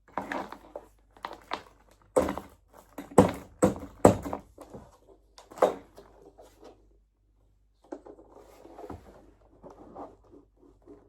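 A series of knocks and clunks from ring-light tripod parts being handled and fitted together, loudest a few seconds in, followed after a short pause by lighter clattering and rustling.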